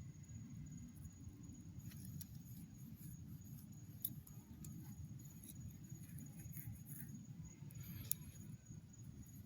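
Faint low rumble with scattered small clicks and crackles, the two sharpest about four and eight seconds in.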